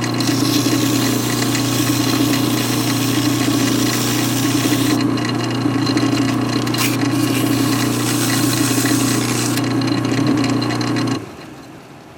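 A lathe runs steadily, spinning a piston while sandpaper is held against it, a hum under a scratchy hiss. The lathe shuts off about 11 seconds in.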